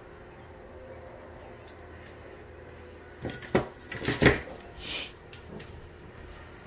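Small plastic spring clamps clattering and clicking against one another as they are picked up from a pile, a cluster of knocks about three to four and a half seconds in, then a brief rustle.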